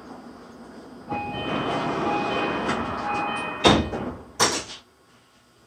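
A two-note door chime sounds three times over station noise on a Tokyu 3020-series train, then two heavy thumps as the doors slide shut before departure.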